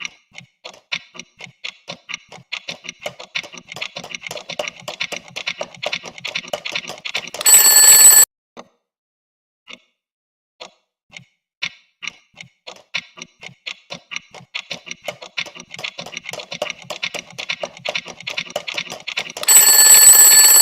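A clock ticking, the ticks coming quicker and denser, then a short loud alarm-clock bell ring. After a few seconds of silence the ticking builds up again and ends in a second, slightly longer ring.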